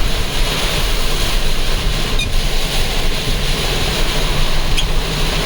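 Steady rushing noise inside a car driving through a severe storm: tyre and wind noise over a low rumble.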